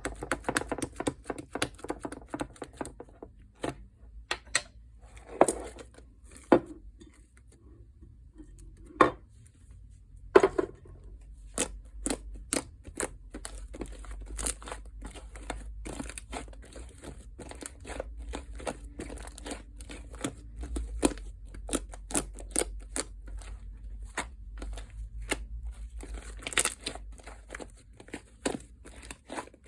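Fluffy shaving-foam slime being squeezed and pressed by hand, giving a run of sharp sticky clicks and crackles, sparse at first and coming thick and fast from about ten seconds in.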